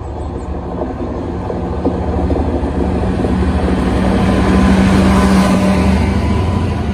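Diesel freight locomotive approaching, its engine a steady low drone that grows louder, loudest about five seconds in.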